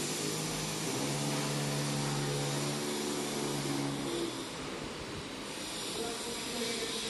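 A steady mechanical drone: broad hiss with a low motor-like hum that holds for a few seconds and fades about four seconds in.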